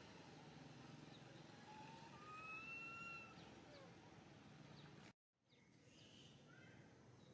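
Faint outdoor ambience with two faint, drawn-out whistled animal calls near the middle, one rising slightly, and a few faint short chirps. The sound drops out completely for a moment about five seconds in.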